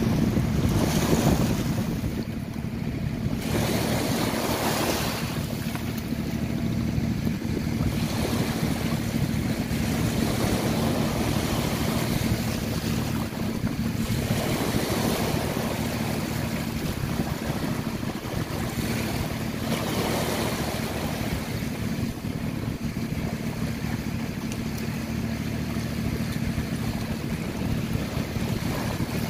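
Small waves washing up on a sandy shore, swelling and fading every few seconds, over a steady low rumble.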